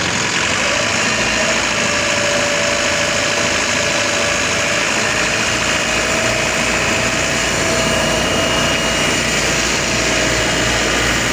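Water rushing from a fire hose jet in a steady hiss of spray, over the steady running of the engine driving the pump.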